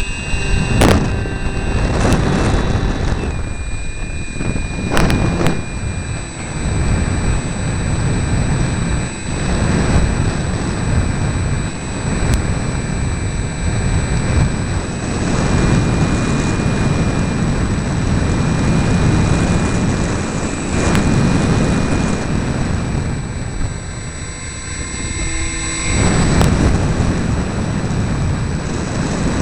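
RC model airplane in flight heard from on board: wind rushing and buffeting over the microphone, with a steady high-pitched whine from the motor and propeller.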